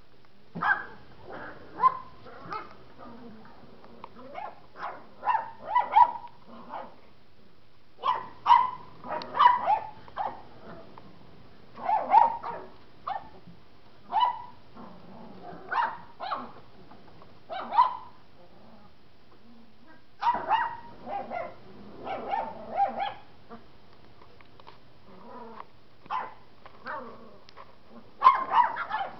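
Setter puppies, almost eight weeks old, barking in short high-pitched yaps that come in irregular bursts every second or two as they play.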